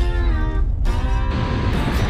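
Background music starting up, with a held note at first and then a full, dense sound, over the low rumble of a truck driving.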